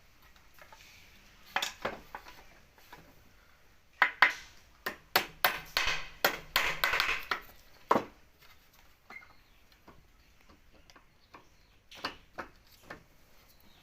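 Irregular sharp knocks and clicks of wood and tools being handled, bunched together in the middle with a brief stretch of scraping, and a few more near the end.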